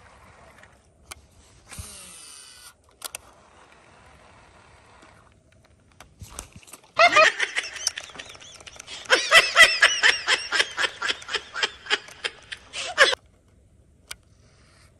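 Baitcasting reel: a brief high whir of line paying off the spool about two seconds in, then the reel cranked by hand for about six seconds, a whining gear tone that rises and falls with the cranking speed, with quick regular clicks, stopping abruptly as the frog lure comes in.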